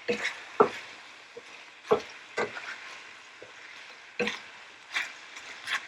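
Chicken pieces sizzling in hot oil in a pot while being stirred, the spoon knocking against the pot about seven times at uneven intervals.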